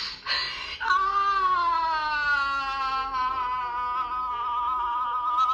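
A long drawn-out wailing cry played back through a phone's speaker, held for about five seconds with a wavering pitch that sinks a little and then levels off. It starts about a second in, after a short noisy burst.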